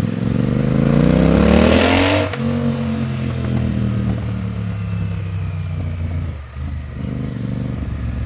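Royal Enfield Continental GT 650 parallel-twin running with its silencers removed, open and loud: it revs up for about two seconds, drops sharply in pitch, then runs on at a steady lower note.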